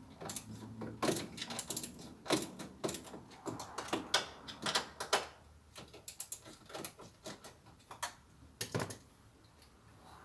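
Irregular sharp clicks and knocks of plastic interior trim, clips and a fuse/mounting block being pried loose and handled under a car's dashboard, some in quick runs of several clicks.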